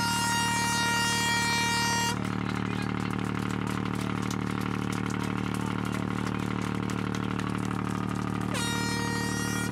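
Air horn sounding a long, loud held blast that cuts off about two seconds in, then starting again shortly before the end with a brief upward slide in pitch. A steady low engine drone runs underneath.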